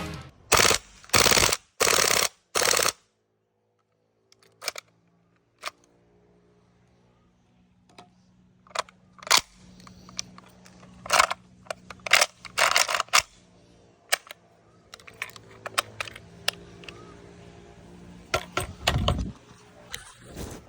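VFC MP5K gas blowback airsoft gun firing four short bursts in quick succession near the start. After that come scattered sharp clicks and knocks over a faint steady hum.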